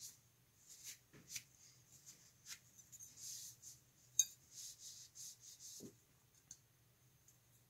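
A cloth rag wiping a small black metal rifle part: soft, scratchy rubbing in uneven bursts, with a few light clicks of the part against the hand or bench. A sharp click about four seconds in is the loudest, and a soft knock follows near six seconds.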